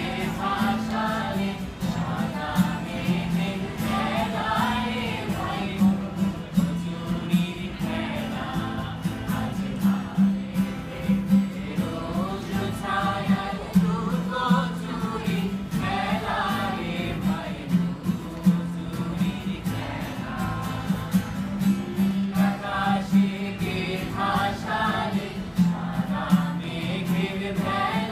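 A mixed group of young men and women singing a song together, accompanied by strummed acoustic guitars.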